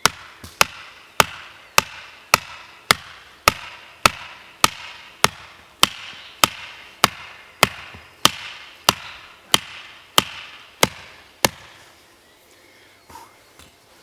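A steady series of sharp knocks, about one every 0.6 s and some twenty in all, each with a short ring. They stop near the end.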